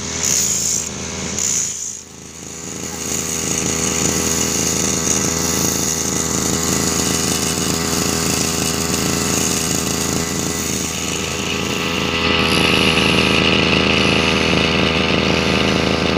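Small two-stroke engine of a backpack brush cutter running steadily, getting louder about twelve seconds in. In the first two seconds a cutting blade is being sharpened, heard as a hiss that comes and goes about once a second.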